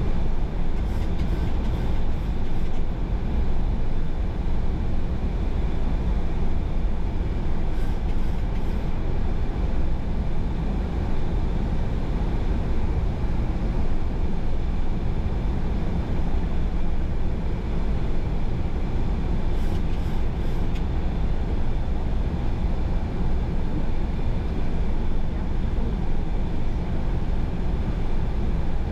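Steady rushing flight-deck noise in a Boeing 737-800 in flight on approach: airflow and engine noise heard from inside the cockpit, deepest at the low end, with faint steady tones.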